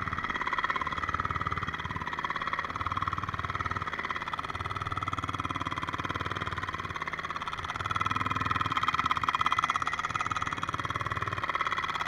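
Pneumatic backfill tamper hammering rapidly as it packs dirt around a wooden utility pole, a continuous buzzing rattle that grows louder about eight seconds in.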